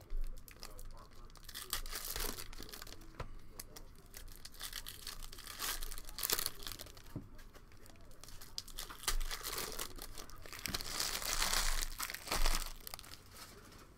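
Shiny foil trading-card pack wrappers being torn open and crinkled by hand, in irregular bursts of crackly rustling, the longest and loudest burst near the end.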